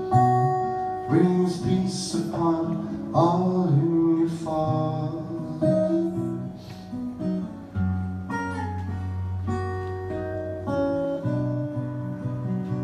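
Live band music led by strummed and picked acoustic guitar, with a deep held low note partway through.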